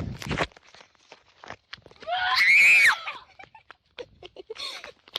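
A child's single high-pitched scream lasting about a second, rising and then falling in pitch, a couple of seconds in. A few thuds like quick footsteps come just before it, at the start.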